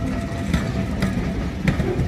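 Train running on the track: a heavy low rumble with a few sharp clicks and a faint steady whine.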